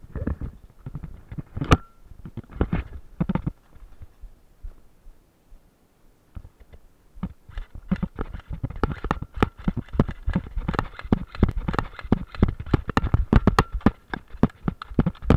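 Airsoft guns firing at close range: a few scattered thumps, then from about halfway through a rapid, irregular run of sharp clicks and snaps that carries on until the player is hit.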